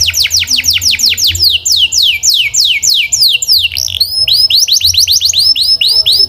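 Canary singing a rolling tour: a fast run of repeated high notes that each sweep downward, slowing and dropping lower over the first few seconds. About two-thirds of the way through it switches to a quicker series of short rising-then-falling notes.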